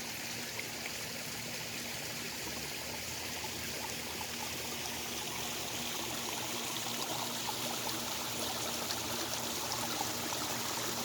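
Water from a backyard pond's filter return welling up at the top of a small rock waterfall and running down over the rocks: a steady splashing, trickling flow.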